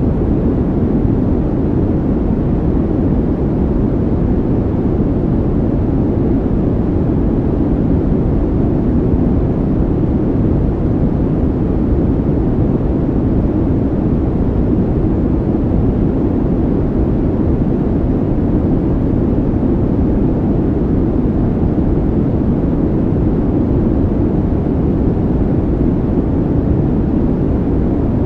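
Steady, even low rushing noise with no breaks, changes or separate events: a calming background noise track.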